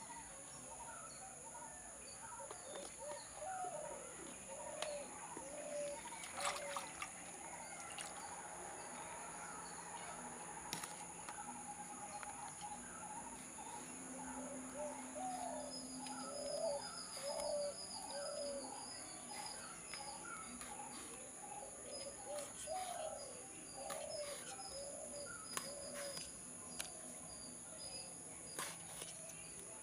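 Faint birds calling over and over, short repeated calls, with a steady high whine behind them and scattered light clicks of a knife cutting brinjal on a leaf.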